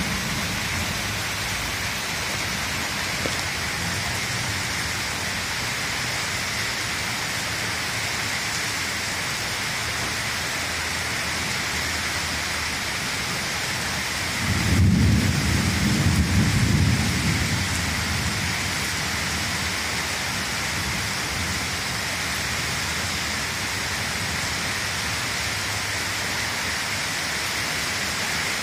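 Steady rain falling, with a roll of thunder rumbling for three or four seconds about halfway through.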